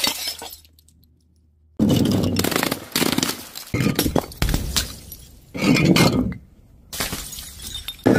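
Glass bottles smashing on a tiled floor: after a second of near silence, a run of sudden shattering crashes, each trailing off in tinkling, rattling glass.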